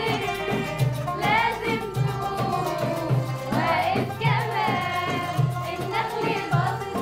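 Girls' choir and a woman singing an Arabic song together in Egyptian style, over instrumental accompaniment with a steady beat.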